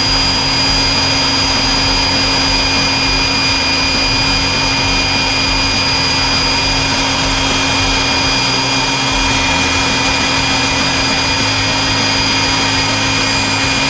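Electric air blower running steadily, a rush of air with a constant high-pitched motor whine, inflating a giant balloon.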